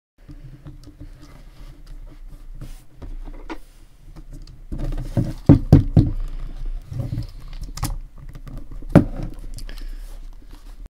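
Hands handling an Olympus OM-D E-M10 camera body: rubbing and light tapping on its plastic and rubber, with a cluster of sharper clicks about halfway through and one sharp click near the end.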